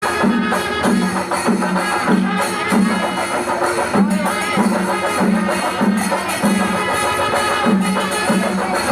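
Music with a steady low drum beat, about three beats every two seconds, under sustained high melodic tones.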